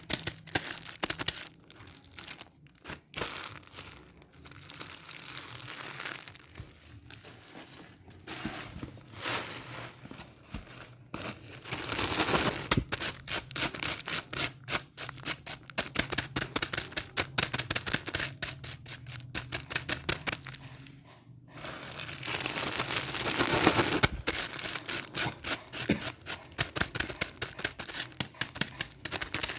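Rapid, irregular crackling and clicking that grows denser and louder in two spells, about twelve seconds in and again after about twenty-two seconds.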